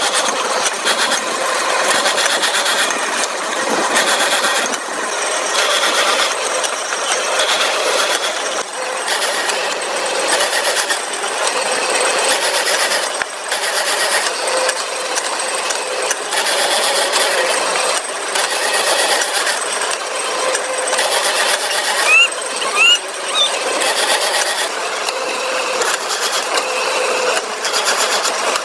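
Factory machinery running with a continuous mechanical noise of uneven rhythm, with a couple of short rising squeaks about three-quarters of the way through.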